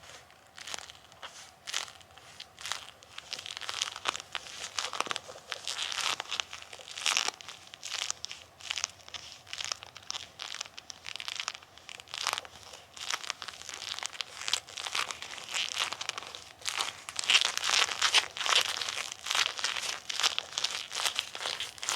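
Bilpearl rubber gloves rubbed hard against each other and pressed and peeled apart, giving a run of irregular rubbery rubbing and sticking noises that grow louder over the last few seconds.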